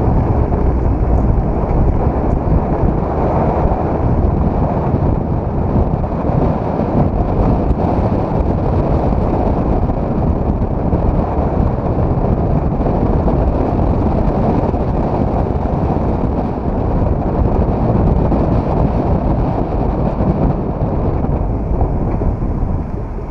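A turbocharged Mazda MX-5's four-cylinder engine running at speed up a hillclimb course, heard from a camera mounted on the outside of the car. Heavy wind buffeting on the microphone largely covers the engine, making a steady, low rumbling noise.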